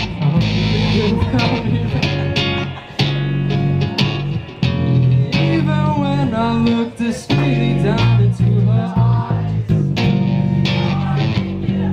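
Live rock band playing: acoustic and electric guitars, bass guitar and drums together.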